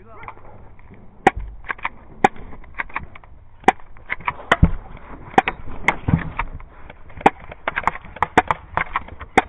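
Airsoft gunfire: an irregular string of sharp clacks from airsoft pistols and rifles being fired, starting about a second in and coming several times a second, some near and some farther off.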